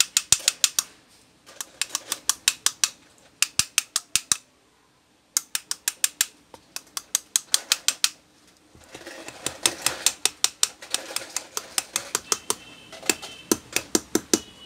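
Small hammer tapping a metal rod held against an electric fan motor's end housing: quick runs of light metallic taps, about six a second, with short pauses between runs. A faint metallic ringing sounds under the taps near the end.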